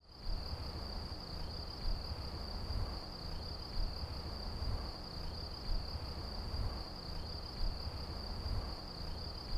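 Insects trilling steadily on one high pitch, over a low rumble that swells about every two seconds.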